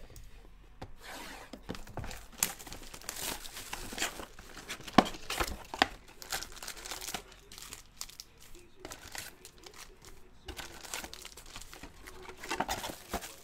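Plastic shrink wrap crinkling and tearing as it is stripped from a trading card box, then the cardboard box opened and its foil packs pulled out, in irregular rustles and sharp crackles.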